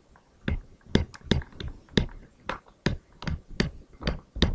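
A stylus tapping and clicking on a tablet screen during handwriting: a string of irregular sharp clicks, about three or four a second.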